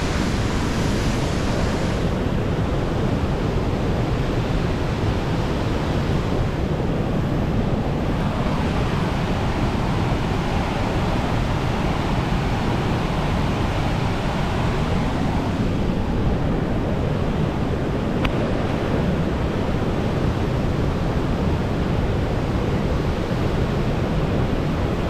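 Upper Niagara River rapids rushing past in a steady, heavy wash of water noise.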